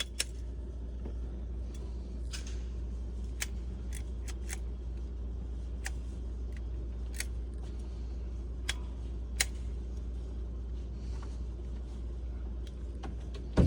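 Scattered sharp metallic clicks at irregular intervals, typical of a handgun or its magazine being handled and loaded, over a steady low hum. The loudest click comes near the end.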